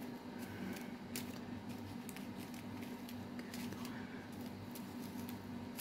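Faint rustling and light clicks of small plastic bags of resin diamond-painting drills being handled, over a steady low hum.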